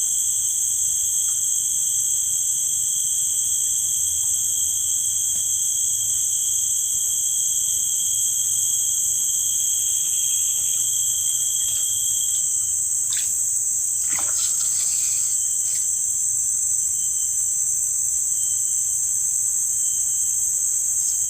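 Steady insect chorus of crickets and similar insects, several high, unbroken shrill tones layered together. A few short clicks and a brief rustle come through about two-thirds of the way in.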